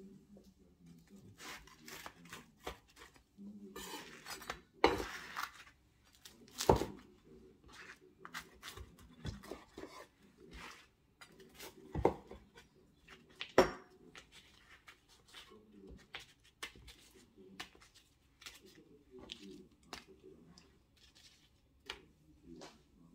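A knife cutting a crisp, pan-toasted flatbread into triangles on a bamboo chopping board: irregular crunching cracks and sharp knocks of the blade on the wood, a few of them much louder than the rest.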